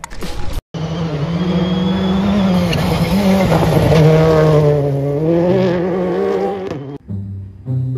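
Rally car engine running hard at high revs, its pitch rising and falling as it slides past on a dirt stage. A short logo sound comes before it, and the engine cuts off suddenly about a second before the end.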